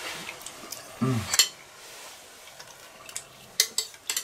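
Metal spoons scraping and clinking against bowls of stew as two people eat, with several short sharp clinks near the end. A brief voice sound comes about a second in.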